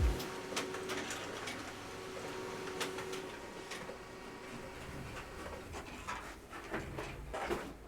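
Light handling noises: scattered small clicks and taps, with a few firmer knocks near the end, as trading-card packaging is handled.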